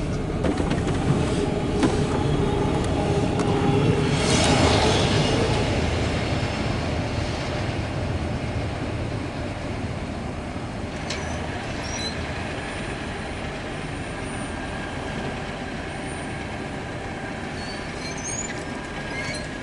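Freight train of autorack cars rolling past close by: a steady rumble and rattle of wheels on rail, louder for a moment about four seconds in. The sound then fades steadily as the end of the train goes by and moves away, with faint wheel squeaks later on.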